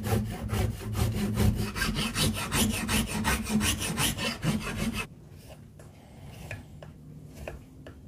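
A rasp drawn in quick, rhythmic strokes over a wooden axe handle, several rasping strokes a second as the wood is shaped. About five seconds in it cuts off and gives way to quieter, scattered scrapes of a knife blade on the handle.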